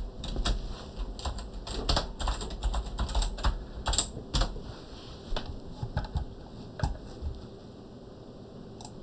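Typing on a computer keyboard: a run of uneven keystroke clicks that stops about seven seconds in, followed by one more single click near the end.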